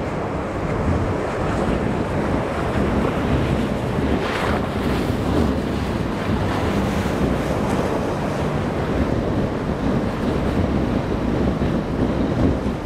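Strong wind buffeting the microphone over breaking surf, with a SeaVee 32 inboard-diesel boat running through rough inlet chop. A brief louder rush of water comes about four seconds in.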